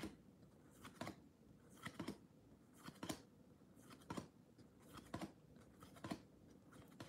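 Baseball trading cards being flipped off a stack held in the hand, one at a time: a short, soft card-on-card slide about once a second.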